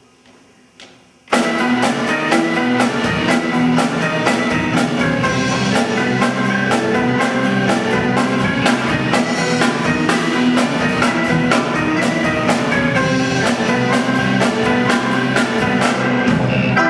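A band starts up suddenly about a second in, playing an instrumental intro led by a drum kit with a steady beat and sustained instrument notes under it; it opens a medley of English duets.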